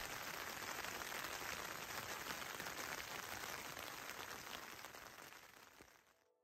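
Light rain falling, a steady even hiss that fades away to silence near the end.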